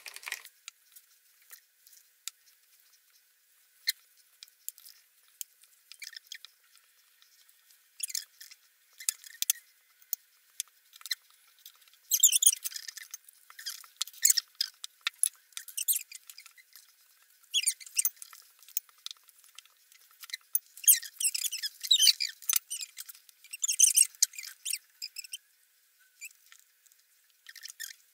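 Scattered scratching, tapping and rustling of hands and kitchen utensils working pie filling and dough, a spoon and a wooden rolling pin among them. It is heard thin and high, with no low end, and comes in busier clusters about halfway through and again a few seconds later.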